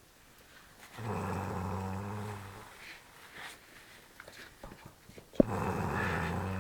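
A sleeping man snoring very loudly: two long, low snores about four seconds apart, the second starting with a sharp click.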